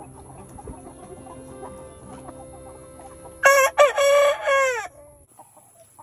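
A flock of Freedom Ranger meat chickens clucking softly, then a young rooster crows loudly once about halfway through, the crow ending in a falling note.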